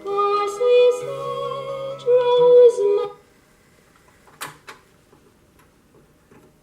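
A record playing on a Philips 22AF 100 portable turntable: a song with a singing voice that cuts off suddenly about three seconds in, followed by two short clicks.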